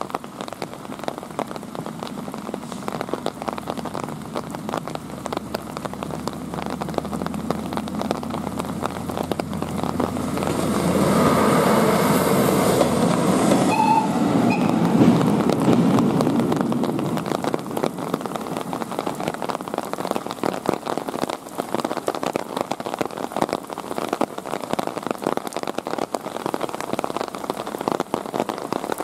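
Steady rain pattering on the road and ground. A louder rushing noise from a passing vehicle builds up about ten seconds in and fades over several seconds.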